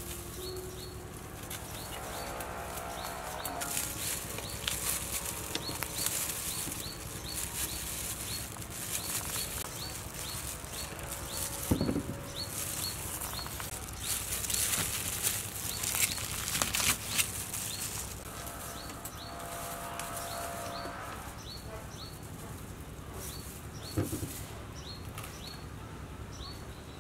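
Rustling and clatter of wild palm fruit being handled in a plastic colander and cut with a knife, with a couple of sharp knocks. Behind it a short high chirp repeats every second or so.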